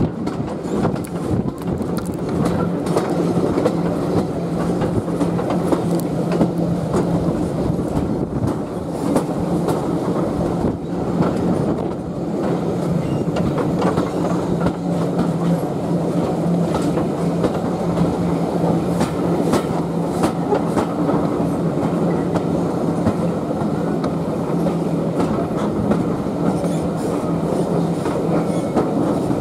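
Railway passenger coach running along the line: a steady rumble, with the wheels clicking irregularly over the rail joints.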